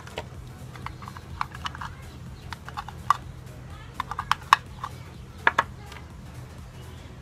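Irregular light clicks and taps of small tools and parts handled on a wooden workbench (a soldering paste tin, tweezers, scissors, LED strip), busiest about halfway through, over a steady low hum.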